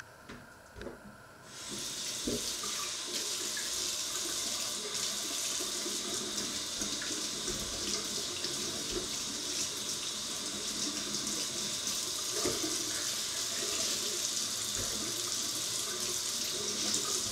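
Kitchen tap running into a stainless steel sink, turned on about a second and a half in and shut off near the end, after a couple of light knocks.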